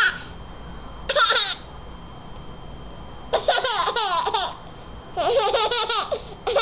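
A one-year-old baby laughing in several bursts of high-pitched giggles: a short one about a second in, then longer peals a little after three seconds and again about five seconds in, and another starting at the end.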